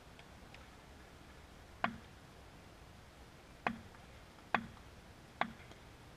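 Four sharp taps of a wooden cricket bat on the hard court surface: one about two seconds in, then three more roughly a second apart.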